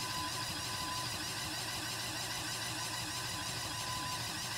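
Steady whirring of small Lego electric motors running the pneumatic setup, with a faint high whine that comes and goes.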